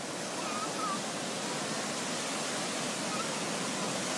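Shallow surf washing over a sandy beach: a steady rush of water. A couple of faint short chirps sound about half a second in, and another near three seconds.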